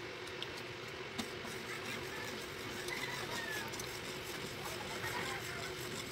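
Brown sugar syrup bubbling in an aluminium wok as it melts down, with faint scattered pops and ticks over a steady low hum.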